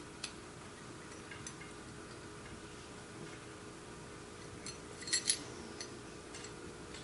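Small steel clicks and clinks of AR-15 bolt and bolt carrier parts handled by hand during reassembly: scattered faint ticks, and a louder quick cluster of two or three clicks a little past five seconds in.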